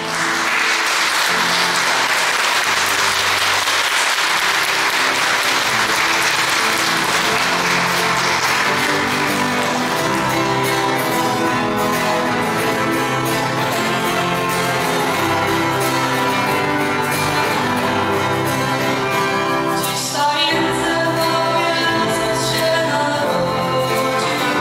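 Audience applauding while the instrumental accompaniment of a carol starts. The applause fades over the first ten seconds or so and the music carries on, with a voice singing from about twenty seconds in.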